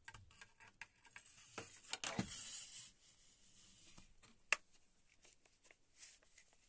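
Faint handling noises: a short rustling rub about two seconds in, small scattered ticks, and one sharp click about four and a half seconds in.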